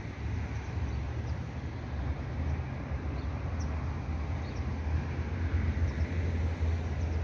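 Steady low outdoor rumble with a constant hiss, with a few faint, short high chirps scattered through it.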